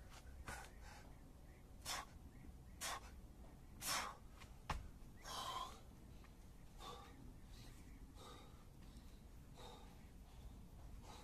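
A man breathing hard from exertion: a run of heavy, gasping breaths, loudest in the first half and fading to softer breaths later. There is one sharp tap about halfway through.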